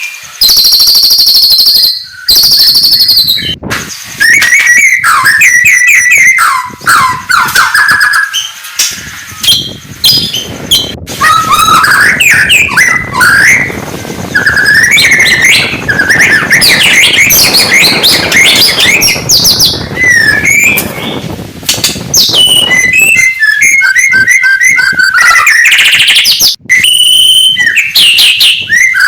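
White-rumped shama (murai batu) singing loudly and without let-up: a varied run of clear whistles, pitch glides and fast trills with only short breaks. A rough noise sits beneath the song through the middle stretch.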